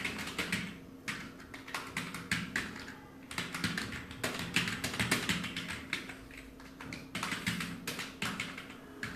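Fast typing on a computer keyboard: rapid runs of key clicks in bursts, with brief pauses between them.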